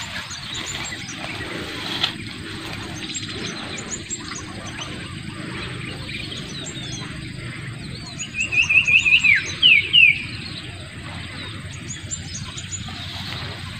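Birdsong over a steady outdoor hiss: short high chirps repeat throughout, and about eight seconds in a bird sings a fast run of notes ending in two downward sweeps, the loudest sound.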